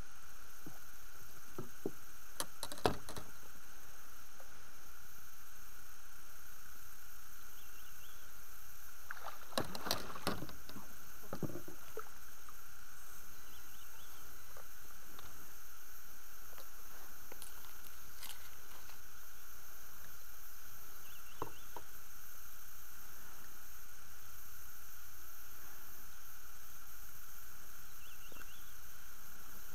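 Steady background hiss with scattered knocks and rustles from handling fish and tackle in an inflatable PVC boat, a burst of them about ten seconds in. Faint short chirps come now and then.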